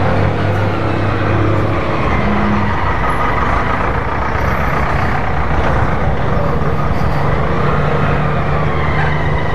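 Slow-traffic engine noise: a small motorcycle ridden at low speed, its engine running steadily and rising a little in pitch about six seconds in, alongside a truck's engine close by.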